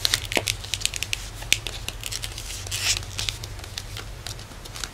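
Paper envelope and paper banknotes being handled, rustling and crinkling in many short, scattered ticks and scrapes.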